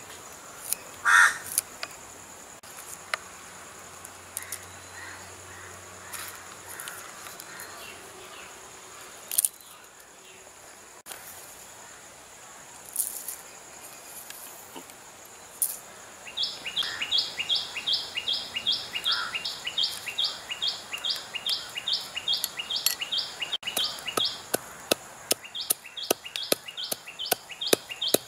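Outdoor ambience with a steady high whine and scattered short clicks, the loudest a sharp sound about a second in. Past the middle a bird calls in a rapid run of repeated chirps, and in the last five seconds a wooden pestle starts pounding garlic and spices in a wooden mortar, a quick regular series of knocks.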